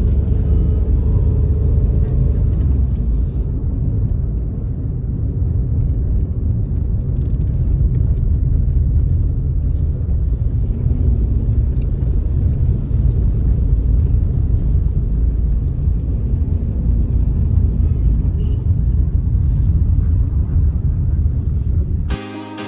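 Steady low rumble of a car driving along a road: engine and road noise, with no break. It cuts off abruptly near the end, where music begins.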